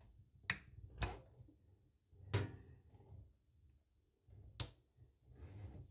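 Four sharp knocks and clicks, spaced a second or two apart, as the braided pull-out hose of an IKEA Ringskar kitchen mixer is drawn up through its stainless steel spout.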